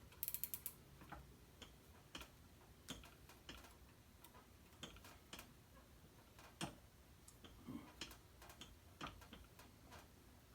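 Light, irregular metallic clicks and taps of hand tools working on a cylinder head during valve disassembly, with a quick run of clicks just after the start.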